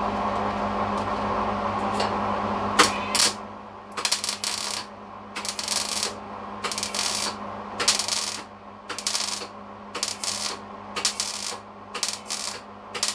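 MIG welder arc crackling on thin sheet steel in a run of short welds, about ten bursts of roughly half a second each, about one a second, starting some three seconds in, as the seams of a sheet-metal box are stitched closed.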